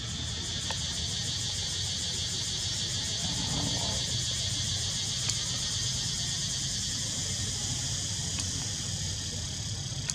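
Steady high-pitched insect chorus with a fine pulsing buzz, over a low steady rumble.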